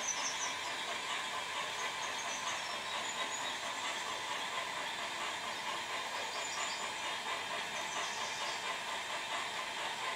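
Model Shay geared steam locomotives running slowly on layout track: a steady train running noise with a light hiss, and a few faint high squeaks now and then.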